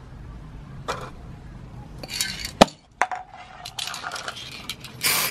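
Small metal tins knocking and clinking as they are handled and set down on tarmac, with one sharp clink, the loudest, a little past halfway, followed by a brief ring. A short hiss from an aerosol spray paint can near the end.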